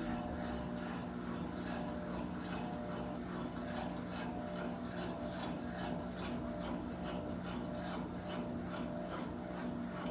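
Turbo LT11F top-loading washing machine running its wash cycle: a steady motor hum with a regular swishing of the load in the water, a couple of strokes a second.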